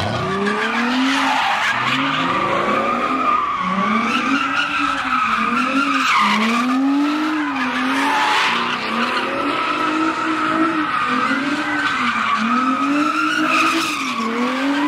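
A car doing donuts: the tyres squeal continuously while the engine revs rise and fall over and over, about every second and a half.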